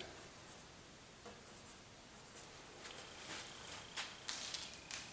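Faint scratchy strokes of a paintbrush scrubbing gray paint onto a canvas, a handful of short strokes that come closer together in the second half.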